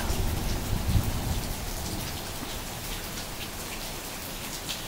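Steady rain falling, with a low rumble in the first second or so and a few sharp drop ticks.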